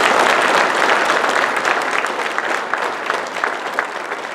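Audience applauding, loud at first and slowly dying down, with single claps standing out in the second half.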